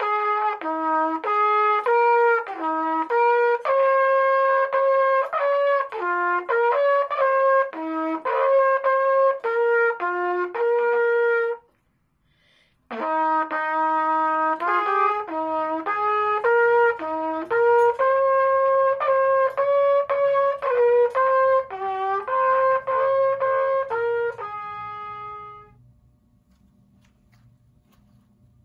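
Solo trumpet playing a slow melody in two phrases, with a short breath pause about twelve seconds in. It ends on a long held note that fades away. A faint low hum is left near the end.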